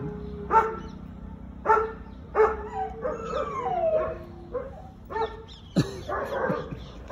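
A dog barking in short, sharp single barks, about six of them, with a wavering whine between the barks around the middle.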